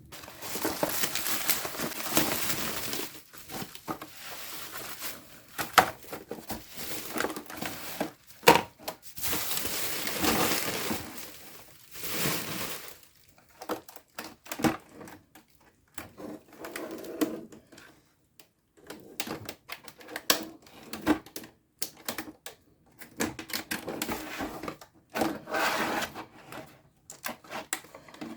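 Packaging being handled and opened: stretches of cardboard and plastic rustling and crinkling, broken by sharp clicks and knocks.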